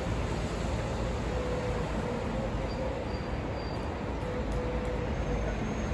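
Steady city street traffic noise: the low, even rumble of buses and cars on the road.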